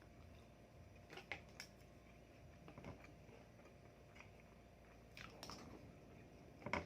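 Faint eating sounds: chewing with a few soft crunches and mouth clicks, and a louder click near the end.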